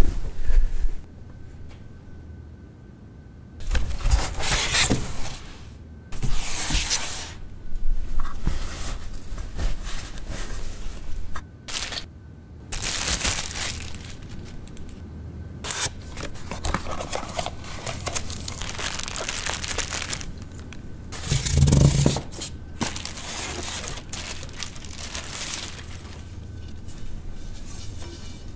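Paper and plastic wrapping rustling and crinkling in irregular bursts as turntable parts are unwrapped and lifted from their box, with a dull thump about two-thirds of the way through.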